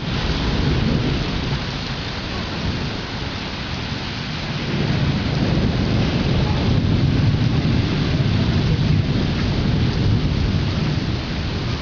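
Rain falling steadily in a thunderstorm, with a long low rumble of rolling thunder that swells about halfway in and lasts several seconds.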